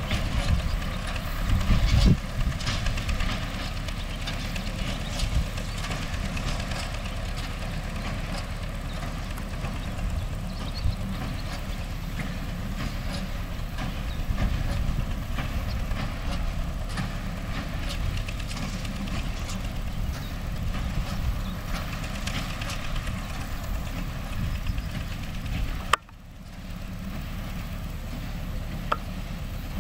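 MTZ-5LS tractor's diesel engine running steadily while working a hay baler, with scattered mechanical clatter. A sudden brief break near the end, after which the same running sound resumes.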